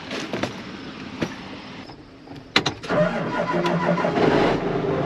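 Tractor engine starting: a few sharp clicks about two and a half seconds in, then the engine catches and runs steadily.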